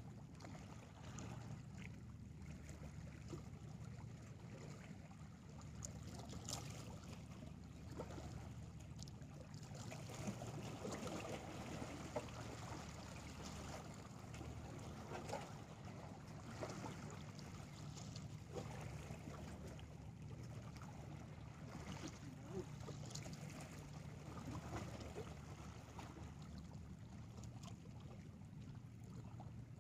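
Small waves lapping and splashing against shoreline rocks in irregular washes, over a low steady rumble.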